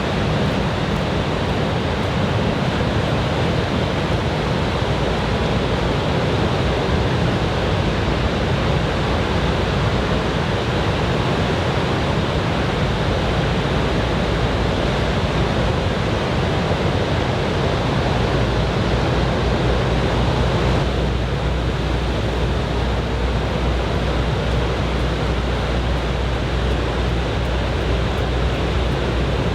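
Surf from typhoon swell breaking and washing up the beach: a steady rush of waves, with a low rumble that swells for a few seconds a little past the middle.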